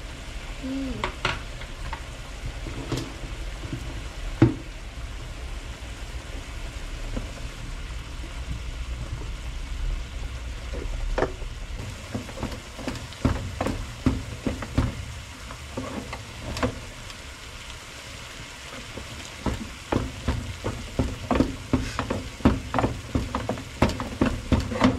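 Wooden spoon stirring a thick flour mixture in a metal pot, scraping and knocking against the pot's sides. A few knocks in the first seconds, then rapid, repeated knocks from about halfway on.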